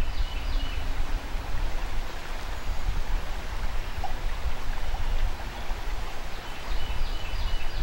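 Steady rush of flowing river water with a heavy, fluctuating low rumble of wind on the microphone.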